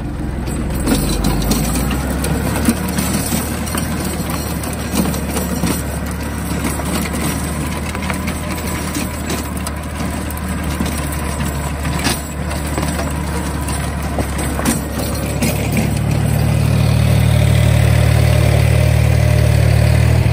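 DongFeng 244 mini tractor's diesel engine running steadily under load while driving a rotary tiller slowly through freshly ploughed virgin ground, with scattered short knocks. About 16 seconds in, the engine grows louder and deeper.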